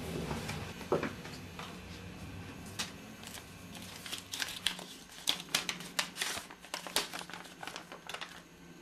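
Paper envelope being handled and opened and a greeting card slid out: crisp rustling and crinkling of paper, busiest in the second half, with a single soft knock about a second in.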